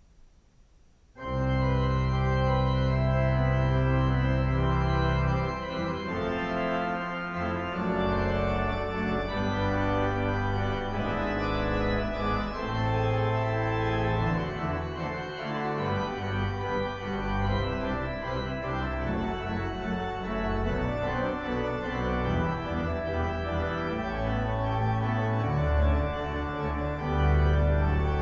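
Organ playing a postlude: it starts abruptly about a second in with full sustained chords over deep bass notes, the chords changing every few seconds.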